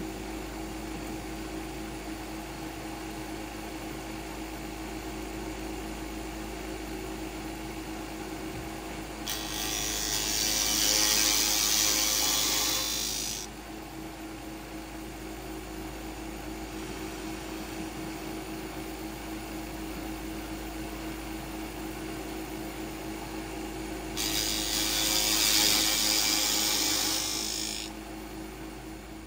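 Milling machine spindle running steadily with a constant hum. Twice, for about four seconds each, a louder hissing burst rises over it: the cutter boring into a wooden block while a compressed-air nozzle blows the chips away.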